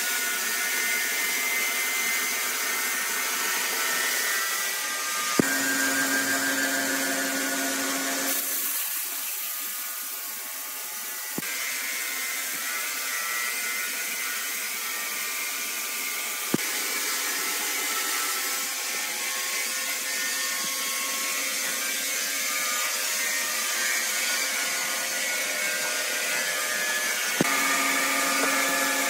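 Horizontal band sawmill running steadily as its blade cuts through a large red incense wood log: a continuous machine whine over a high hiss. The sound shifts abruptly several times, a few of the shifts marked by a sharp click.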